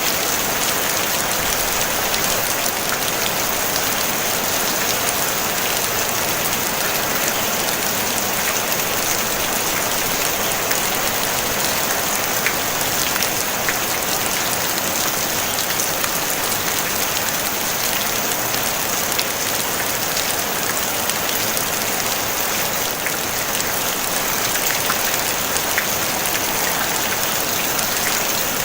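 Steady rain falling on a tin roof: an even hiss of rain with scattered small drop taps, no thunder.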